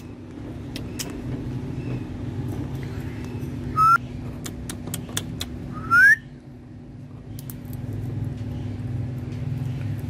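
Two short rising whistles, about 4 and 6 seconds in, over a steady low hum, with scattered sharp clicks.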